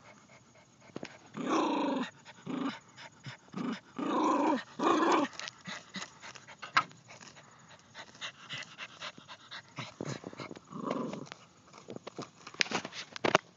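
Miniature pinscher growling in short spells as she digs for a mouse, with quick scratching of paws in dirt and grass. There are about five growls in the first five seconds, one more a little before the end, and a flurry of scratches near the end.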